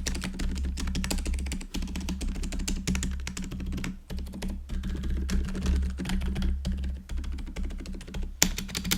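Rapid keystrokes on a GoPolar TKL mechanical keyboard fitted with factory-lubed Silent Cream Yellow Pro silent tactile switches, a dense run of soft clicks, over a low steady hum.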